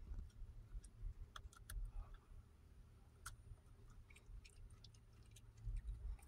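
Small dog chewing a piece of raw broccoli stalk: faint, irregular crunching clicks.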